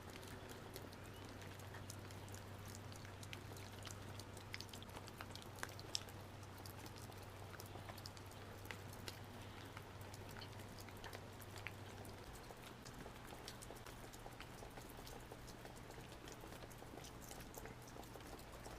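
Quiet room tone: a faint steady low hum with scattered light ticks and crackles.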